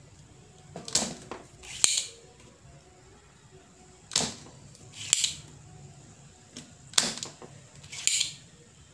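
Spring-loaded desoldering pump (solder sucker) being worked three times, each cycle two sharp snaps with a short hiss about a second apart, drawing melted solder off the joints of a mosquito bat's faulty, jammed switch.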